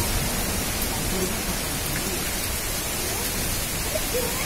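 Cyclone-force wind and rain making a steady, unbroken rush of noise as coconut palms thrash in the storm.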